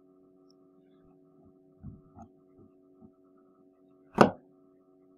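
Steady low electrical hum on the recording, with one sharp click about four seconds in.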